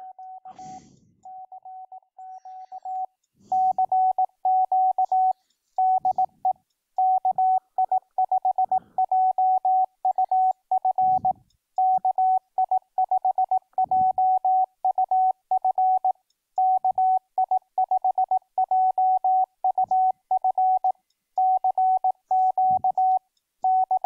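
Morse code sent as a steady tone near 750 Hz, keyed on and off at 18 words per minute by FLDigi while the Yaesu FT-991A transmits a CQ call. The tone is fainter for the first three seconds, then louder.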